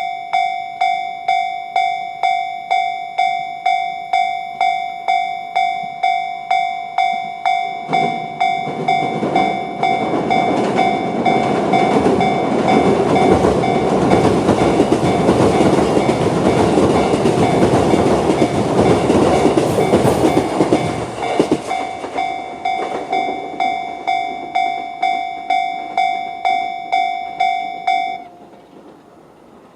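Japanese level-crossing alarm bell (the JR standard electronic sound) ringing at about two strikes a second. About eight seconds in, an E129 series electric train of two coupled sets runs over the crossing for about thirteen seconds, its wheel and rail noise drowning the bell. The bell then rings on alone and stops a couple of seconds before the end.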